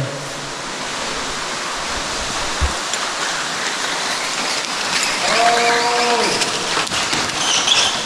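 Steady rushing of an underground waterfall pouring down a deep cave pit. A person's voice is heard briefly about five seconds in.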